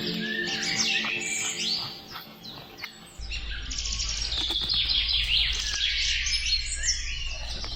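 Many small birds chirping and twittering, a dense run of short high calls that eases off briefly around two to three seconds in. A steady low hum starts about three seconds in.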